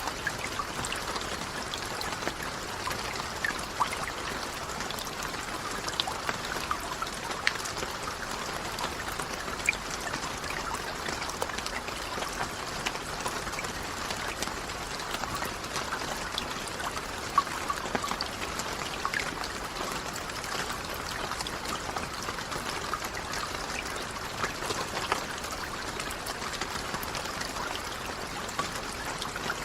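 Steady rain falling: an even hiss with many individual drops ticking sharply through it.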